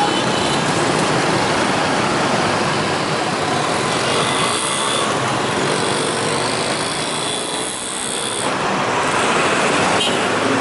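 Dense road traffic passing close by: motorcycle and car engines, with a bus going past.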